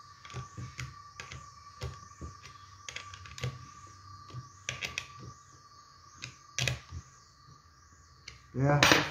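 Irregular light metallic clicks and taps of a small socket wrench on the guide-bar nut of a mini cordless chainsaw as the nut is tightened.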